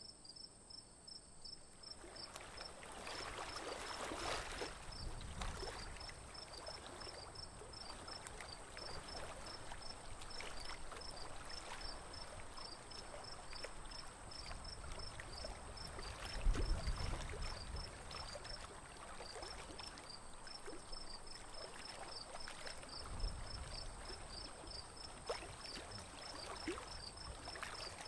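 Water splashing and lapping around a small wooden boat moving through a shallow, weedy lake, starting about two seconds in, with a couple of dull low thumps from the boat partway through. Insects chirp steadily throughout, about four chirps a second, over a thin high whine.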